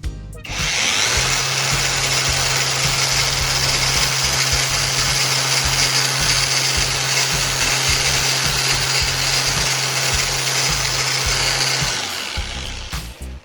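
Angle grinder switching on and running steadily at speed, with a steady motor hum under a loud, harsh grinding hiss. It stops about 12 seconds in.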